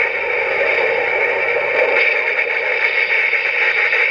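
Electronic sound effect from the CSM Den-O belt's small built-in speaker in its G Den-O mode, a steady, thin, static-like sound without breaks.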